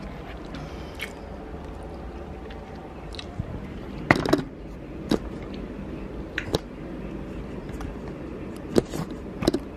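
Someone handling and eating takeout food: a few sharp clicks and soft squishy sounds over a low steady background.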